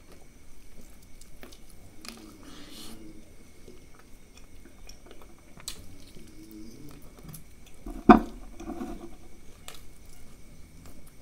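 Close-miked chewing and biting into a tandoori chicken leg, soft and irregular, with one sharp click about eight seconds in that is the loudest sound.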